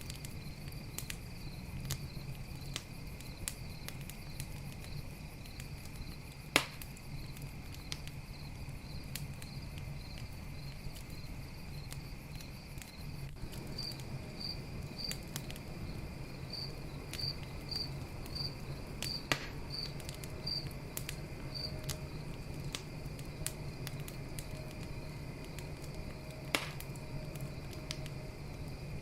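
Campfire crackling with scattered small clicks and three sharp pops, over crickets chirping steadily in a regular pulse.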